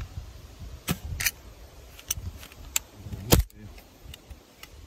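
ICS SAR 9 gas-blowback airsoft pistol firing single shots at close range into a plastic sight-guard shield: several sharp cracks at uneven spacing, the loudest a little past three seconds in, over a low rumble.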